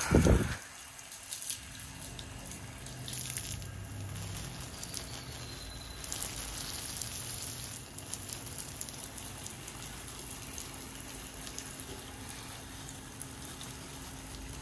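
Water from a garden hose spraying up into leafy trees and pattering down through the leaves, with a steady splashing hiss. A brief loud thump comes at the very start.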